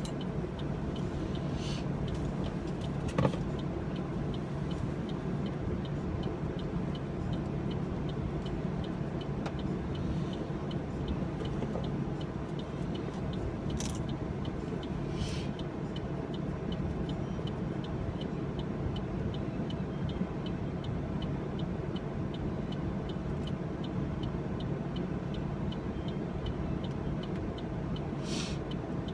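Steady low hum of a car heard from inside the cabin, with faint regular ticking over it. A few small clicks and taps from hand work on a phone break in, the sharpest about three seconds in.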